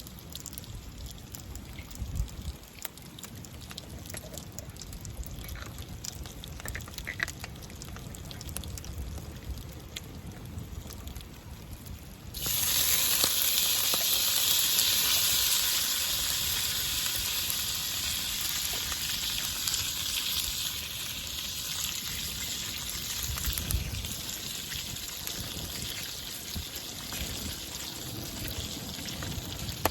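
Gyoza frying in a CHUMS hot sandwich cooker over a campfire. About twelve seconds in, a loud sizzle starts suddenly and slowly dies down.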